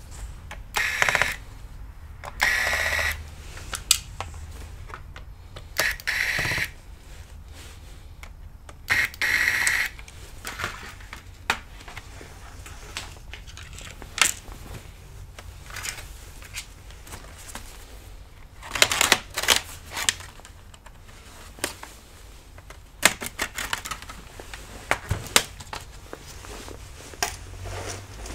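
Lenovo Yoga 460's bottom cover being unscrewed and pried off. A few short bursts of screwdriver work come in the first ten seconds, then clusters of sharp plastic clicks and snaps as the cover's clips let go.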